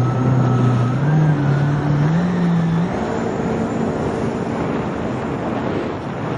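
Jet ski engine running under throttle, its pitch rising in steps over the first three seconds, then sinking beneath a steady rushing noise.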